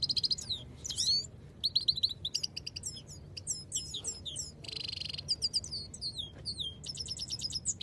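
Caged goldfinch singing a rapid, twittering song of quick gliding notes and trills. It breaks into a buzzy rattle about five seconds in and a run of fast repeated notes near the end.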